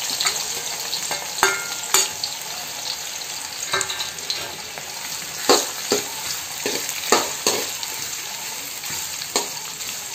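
Sliced onions frying in hot oil in a metal kadhai, a steady sizzle, while a metal ladle stirs them and clinks against the pan every so often.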